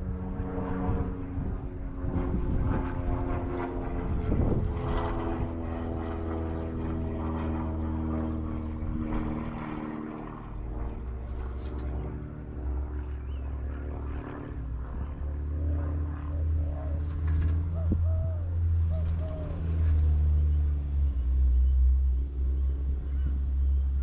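A steady engine drone with several even tones that fade out about ten seconds in, followed by a low rumble that swells near the end; a few short bird calls and sharp clicks come through in the second half.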